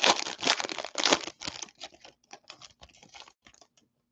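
Foil baseball card pack wrapper being torn open and crinkled. The sound is densest for the first second and a half, then thins to scattered crackles that stop about three and a half seconds in.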